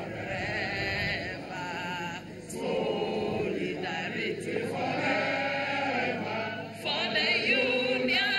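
A group of voices singing together in chorus, a woman on a microphone leading the song.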